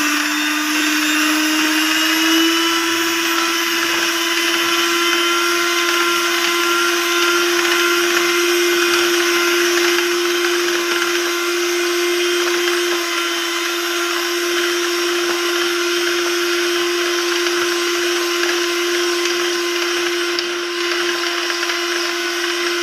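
Electric hand mixer running steadily, its two wire beaters beating thick cream in a bowl. The motor's pitch climbs a little over the first couple of seconds, then holds as an even whine.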